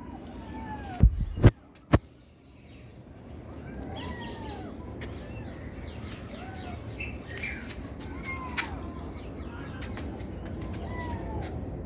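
Kittens mewing: short, high calls that rise and fall in pitch, one every second or two. Three sharp, loud knocks come between about one and two seconds in.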